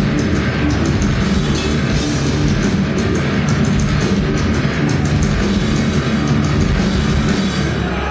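Heavy metal band playing live through Marshall amplifiers: distorted electric guitars, bass and drums at full volume. The playing stops right at the end.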